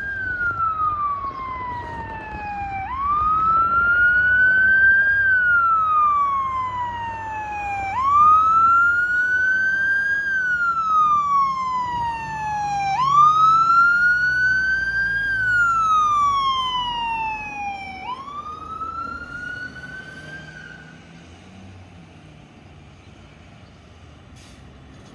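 Fire apparatus siren wailing, its pitch sliding slowly up and down about every five seconds over a low rumble. It fades away after about twenty seconds.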